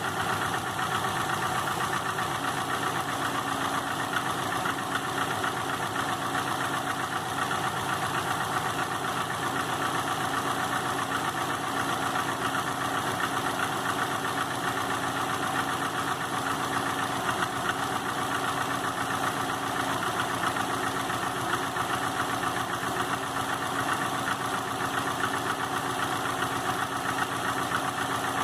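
2005 Subaru Legacy GT's turbocharged 2.5-litre flat-four idling steadily with a rapid knock. The knock appeared after the engine was rebuilt with a refurbished block, new crankshaft and new bearings, and its cause has not been found.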